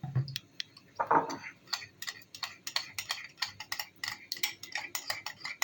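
A spoon stirring honey and sauce together in a small bowl, clicking quickly against the sides, about six clicks a second. A short, louder sound comes about a second in, before the steady clicking begins.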